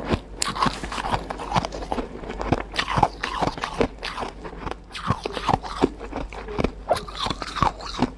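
Ice being chewed close to the microphone: a run of hard, irregular crunches, several a second.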